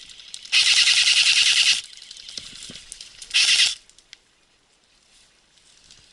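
Airsoft electric gun firing on full auto: a burst of about a second and a quarter of rapid, even shots, then a short burst a couple of seconds later.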